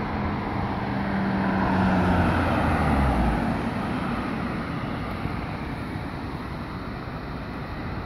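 A car drives past on the road, its sound swelling over the first two or three seconds and fading after, the engine note dropping in pitch as it goes by. A steady hiss of traffic and wind runs underneath.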